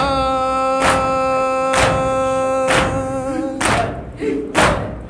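Nauha recitation: a man's voice holds one long sung note for about the first three seconds, then gives short sung phrases. Mourners beat their chests in unison (matam) about once a second, a sharp thump each time, keeping the beat of the lament.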